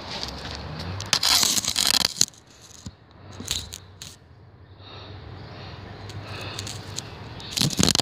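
Scraping, crackling rubs of a hand-held phone being moved and handled, loud for about a second a second in and again briefly near the end, with quieter rustling between.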